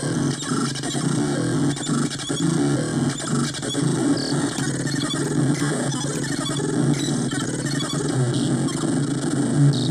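Homemade CMOS noise machine (4017 sequencer, 40106 oscillator bank, 4046 VCO) putting out a thick, low, buzzing mass of clashing tones with scattered clicks, run through its fuzz and PT2399 echo delay.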